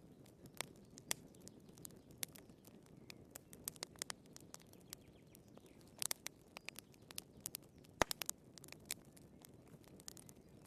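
Wood fire crackling: irregular sharp pops and snaps of burning firewood over a low steady rumble of flame, with a cluster of pops about six seconds in and the loudest snap about eight seconds in.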